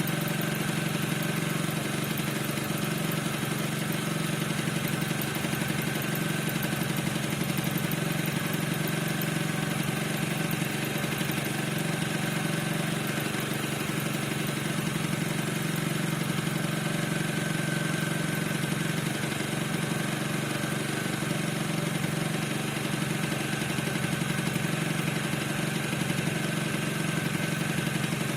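Piaggio NRG 50 scooter's two-stroke engine idling steadily with a fast even putter, and a thin steady high squeak over it whose cause the owner does not know.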